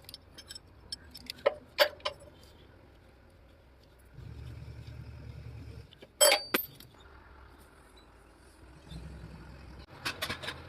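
Metal tools clinking and striking on metal, with two loud sharp hits about six seconds in and more near the end. A low steady hum comes on twice for a couple of seconds.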